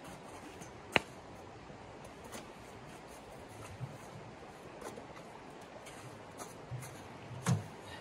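Small handling noises: a sharp click about a second in, a few faint ticks, and a dull knock near the end, over a steady low hiss.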